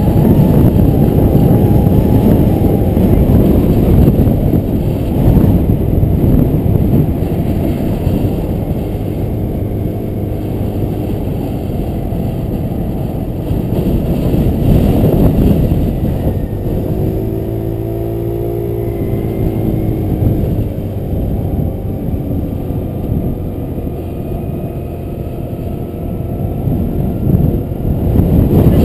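Motor scooter riding along with its engine running, drowned in heavy wind rumble on the camera microphone; an engine tone rises and falls in pitch in the middle.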